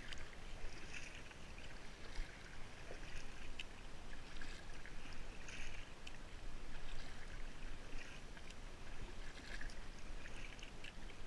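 Kayak paddle strokes: water splashing off the blades at an even pace, about one splash a second, over a soft wash of water.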